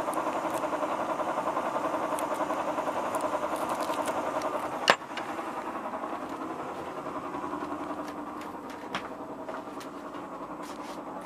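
350 cubic-inch V8 MerCruiser boat engine running at low speed with a steady throb. A single sharp click comes about five seconds in, after which the engine sounds a little quieter.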